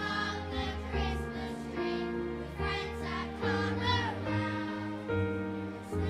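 Children's choir singing with instrumental accompaniment and a bass line.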